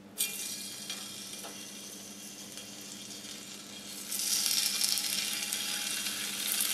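Raw chicken breast strips sizzling in hot vegetable oil in a frying pan as they are laid in one by one. The sizzle starts suddenly and gets louder about four seconds in as more strips go into the oil.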